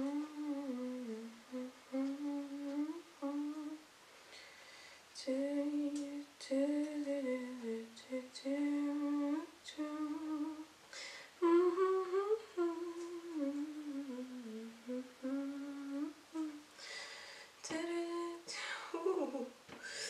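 A woman humming a slow, wandering melody in short phrases, with a few faint clicks of handling on a cutting board.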